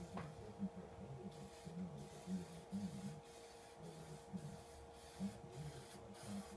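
Aerosol spray-paint can hissing in a run of short, repeated bursts as the nozzle is pressed and let go, the nozzle coming clear again after clogging with paint.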